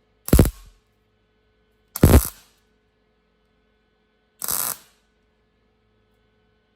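MIG welder stitch-welding a sheet-metal patch panel: three short bursts of arc noise about two seconds apart, each cut off abruptly, the third quieter.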